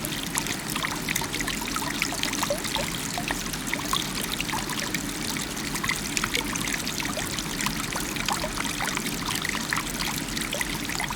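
Small stream flowing and babbling: a steady rush of water over which many small bubbling splashes pop up continually.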